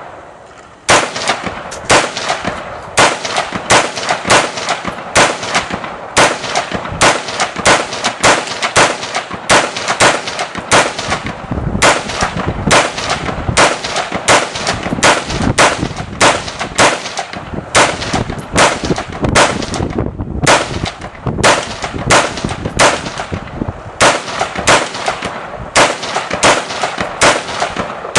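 Armalite AR-15 rifle fired in a long string of single shots, roughly two a second with uneven spacing and a few short pauses, each shot followed by echo. The 100-round Beta C-Mag drum magazine lets it keep firing without a reload.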